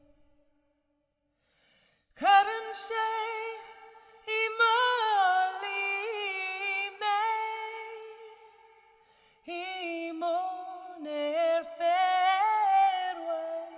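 A woman singing a slow Irish-language psalm unaccompanied, her solo voice holding long, ornamented notes. After about two seconds of silence she sings phrase after phrase, with a short pause near the middle.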